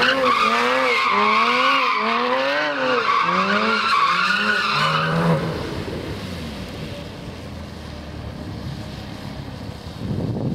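Porsche Cayman GT4's flat-six engine revving up and down in quick repeated swells as the tyres squeal through a donut drift. About five seconds in the revs drop and the sound turns to a lower, rougher run with tyre noise.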